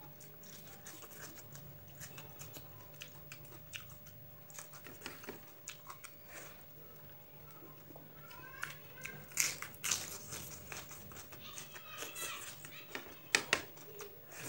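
Close-up eating sounds: a person eating rice and curry by hand, with chewing, mouth smacks and sharp clicks over a steady low hum. From about eight seconds in, short high calls gliding up and down come from an animal in the background.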